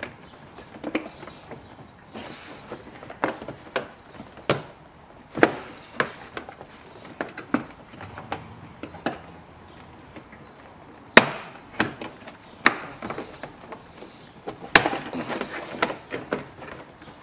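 A car's plastic interior trim panel being pried off, its retaining clips snapping loose and the plastic knocking in irregular sharp clicks, the loudest about two-thirds of the way through.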